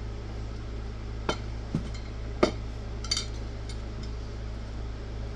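Small hard objects clinking and knocking on a workbench as tools and parts are handled: four short knocks, the third the loudest, over a steady low hum.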